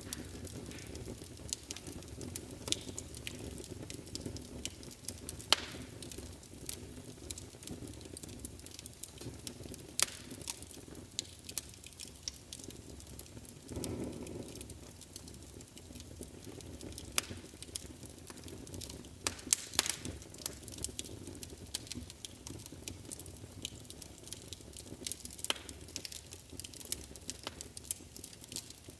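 Wood fire burning in a fireplace: a steady low rumble of flames with frequent sharp crackles and pops, a few louder snaps scattered through, and a brief swell of the rumble about halfway.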